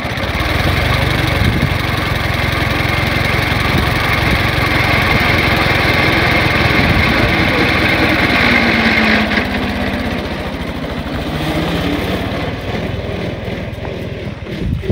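Ford Model T's four-cylinder flathead engine running loud and close, then pulling away, getting somewhat quieter over the last few seconds.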